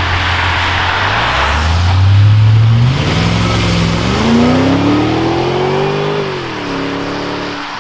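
V8-powered Volvo S80 saloon accelerating away, its engine revving up, dropping in pitch at a gear change near three seconds, climbing again, then easing off about six seconds in. Tyres hiss on the wet road throughout.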